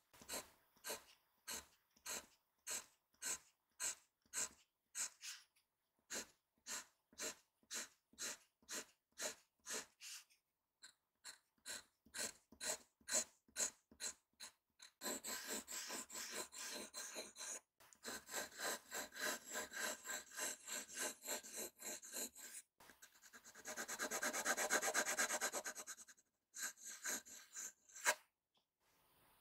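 Seria 100-yen glass pen nib scratching on Midori MD Cotton paper. First comes a run of separate short strokes, about two a second. Then, about halfway through, continuous looping strokes, with a louder, rapid burst of hatching scratches near the end.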